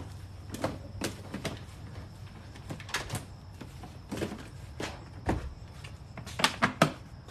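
Scattered clicks and knocks of hard plastic parts on a Milwaukee PACKOUT bucket cart being handled and set in place, with a low thump a little after five seconds and a quick run of clicks near the end.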